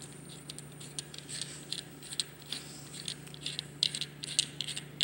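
Metal parts of a disassembled oil catch can clicking and rattling as they are handled: irregular light taps and clicks, coming more often from about a second in.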